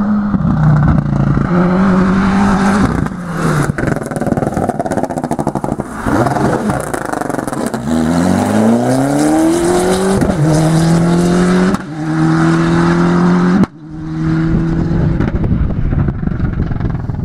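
Ford Escort rally car engine at full throttle, revving up through the gears. The pitch climbs hard and drops back at each upshift, several times in a row.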